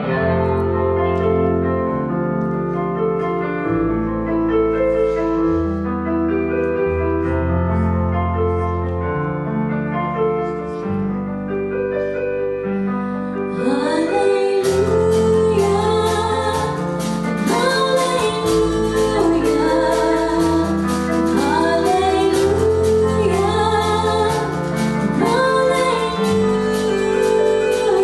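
Live church band playing a worship song: sustained keyboard and electric guitar chords over bass guitar at first. About halfway through, drums and cymbals come in and a woman starts singing the melody.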